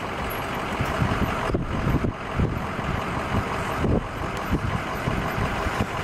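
Road vehicle driving, heard from inside the cabin: a steady rumble of engine and tyres on the road.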